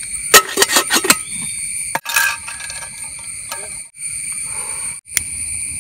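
Steady high drone of forest insects, with a quick run of sharp metallic clinks and knocks in the first second and another knock about two seconds in, as a stainless-steel camping kettle holding eggs and water is handled.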